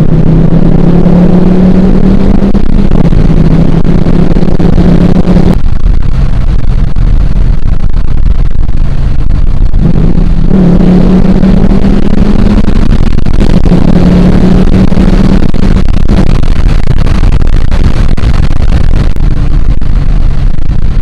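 Dodge Charger R/T's 5.7-litre HEMI V8, fitted with an aftermarket cold air intake, running while the car is driven: a steady, loud engine drone that drops away briefly three times and then picks up again.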